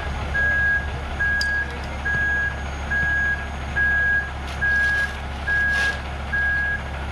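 A vehicle's back-up alarm beeping steadily, a bit under once a second, over the constant low running of the concrete mixer truck's engine. A few short scrapes of tools in the wet concrete come through about a second in and again around five seconds.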